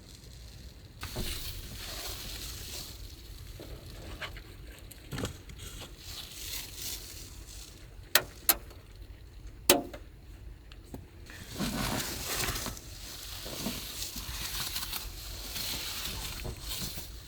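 Rustling and handling noises with a few sharp clicks or knocks, three of them close together in the middle.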